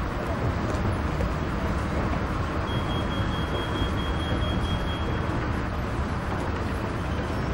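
Steady background rumble and hiss with no clear events, like traffic or building ambience. A faint thin high tone sounds for a couple of seconds in the middle.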